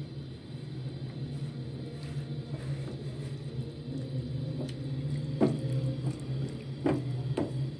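Silicone spatula stirring and pushing raw chicken pieces around a non-stick frying pan in melted butter: soft wet squishing, with a few sharp taps of the spatula against the pan in the second half, over a steady low hum.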